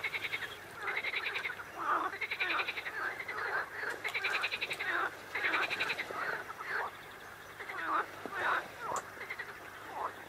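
A chorus of frogs croaking, with rattling, pulsed calls overlapping and repeating every second or so.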